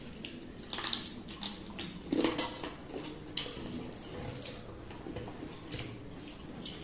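Eating sounds: wet chewing and lip smacks, with fingers squishing rice into curry gravy on steel plates, in irregular short clicks and smacks. The loudest smack comes about two seconds in.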